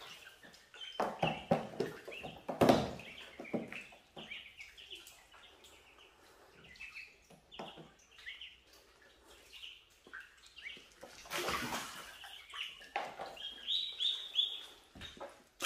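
Ducklings peeping, many short high chirps overlapping one another. Water splashes in between, loudest in the first three seconds and again just past the middle.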